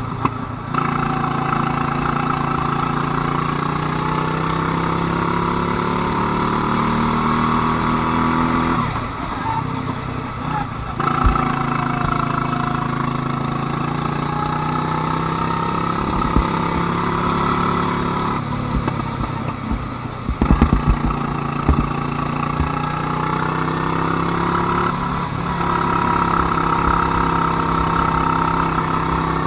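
Go-kart engine running steadily at speed, its note dropping briefly twice, about a third and two-thirds of the way in, with a few sharp knocks during the second drop.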